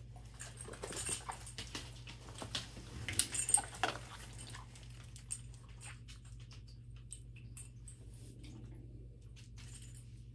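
A dog moving about, with light jingling and rustling and scattered sharp clicks, loudest about three seconds in, then only a few faint ticks.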